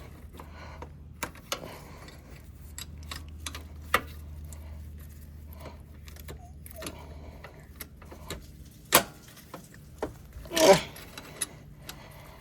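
Scattered metal clicks and clinks of an open box wrench working at the shift-cable ends on a manual transmission, with a louder knock about nine seconds in and a louder scrape near eleven seconds. A low steady hum runs underneath for most of the first eight seconds.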